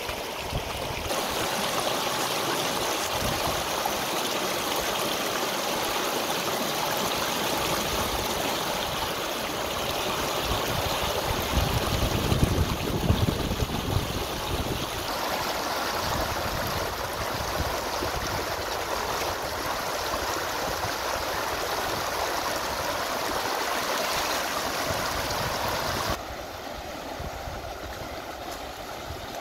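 Shallow river rapids rushing steadily over rocks. The sound swells louder for a few seconds in the middle and drops to a quieter rush near the end.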